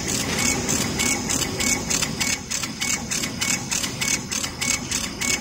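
A CO2 laser cutting machine running as its cutting head travels over the bed, cutting acrylic. It gives a steady machine hiss that pulses rapidly and evenly, about four to five times a second, with a faint high tone switching on and off.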